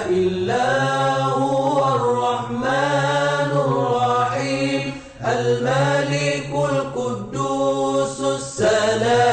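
Melodic vocal chanting of an Islamic nasheed intro, in slow, long-held phrases with a short break about five seconds in.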